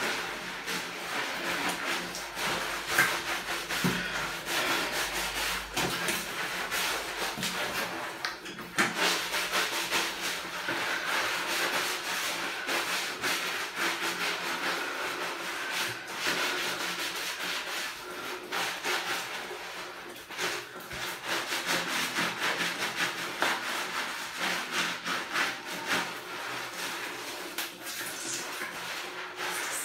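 Mesh bath sponge scrubbing soapy skin in quick, repeated rubbing strokes.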